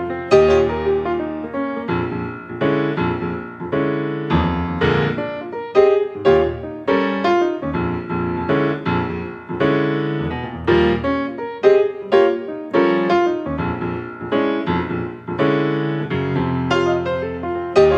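Background piano music, a continuous run of struck notes and chords.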